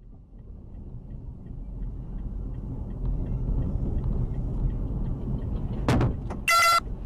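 Low road and engine rumble of a car driving, growing louder over the first few seconds. About six seconds in there is a sharp bang, and a moment later a short, loud beep.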